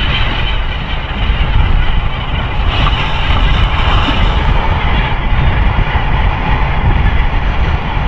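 Steady rumbling noise of wind and choppy sea, heard aboard a small inflatable boat.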